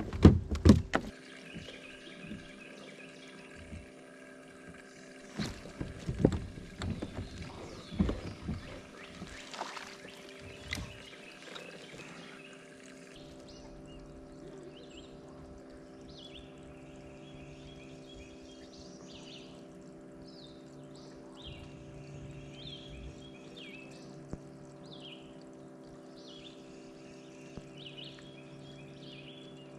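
Knocks and clatter of handling in a small fishing boat, loudest in the first second and again about six to eight seconds in, over a steady hum. From about halfway through, a bird chirps repeatedly.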